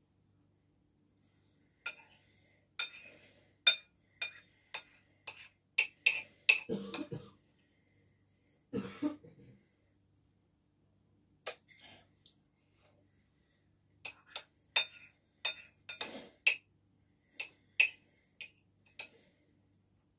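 A metal utensil clinking and scraping against a glazed ceramic bowl while scooping couscous, in quick runs of sharp clicks. There are a couple of duller, lower sounds around the middle.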